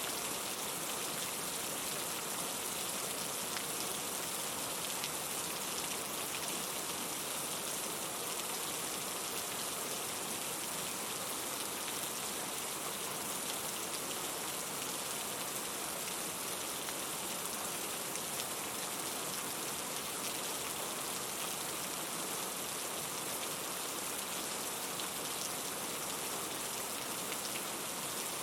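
Steady rain falling, an even hiss with faint scattered drop ticks and no change in strength.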